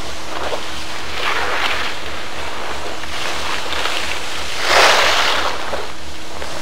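Skis swishing across snow in several rushes, the loudest about five seconds in, over a steady low hum.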